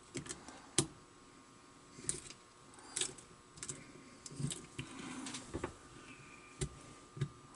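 A lock pick tapping and raking at the pins inside a brass pin-tumbler padlock as it is single-pin picked under tension: scattered light clicks with a few short scrapes.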